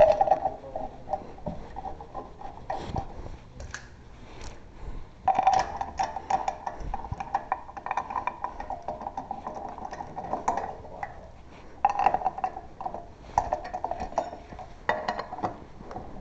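Metal hand tools clicking and clinking on the wheel during a tire change, in several spurts of rapid clicks.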